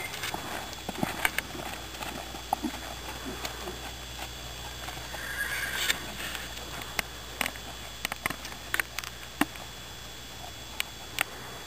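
Horse's hooves and tack as it is ridden on a sand arena: scattered, irregular soft clicks and thuds, with a brief rushing noise about five seconds in.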